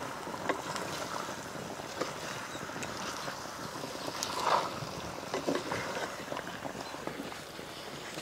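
A spatula stirring chicken pieces in a clay pot, with scattered scrapes and knocks over a steady hiss.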